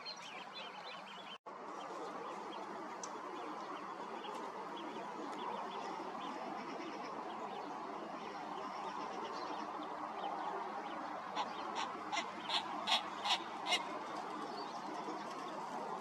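Waterfowl calling on a lake: a run of short, sharp calls, about three a second, in the last few seconds, over a steady background noise.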